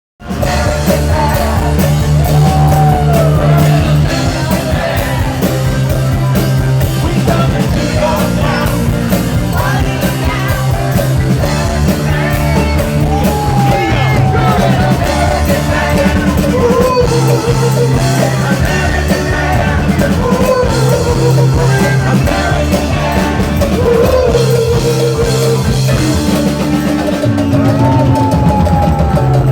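Live rock band playing, with a singer, bass, guitar and drum kit.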